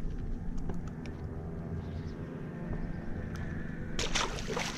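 A largemouth bass thrown back from the boat splashes into the lake about four seconds in, a short loud splash. A steady low hum runs underneath.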